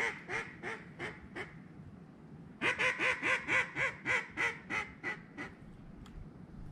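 Mallard duck call blown in a hen-quack series: evenly spaced quacks, about three a second, each run starting loud and trailing off. The first run tails off early on, and a second full run starts about two and a half seconds in.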